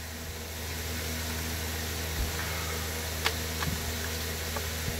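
A steady background hum, with a few light clicks and taps from about two seconds in as hands handle the plastic body of a Stihl MS 290 chainsaw.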